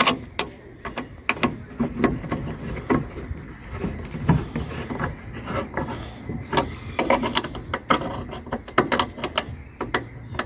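A hand tool driving the headlight's T30 Torx bolts back in, clicking in quick irregular runs with a few knocks among them.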